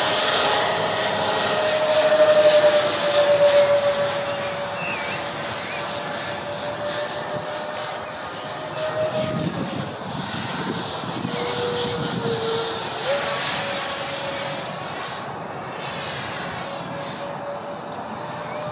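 Electric ducted fans of a Freewing MiG-29 RC jet whining as it flies overhead, loudest in the first few seconds. The pitch drops about ten seconds in and jumps back up about three seconds later.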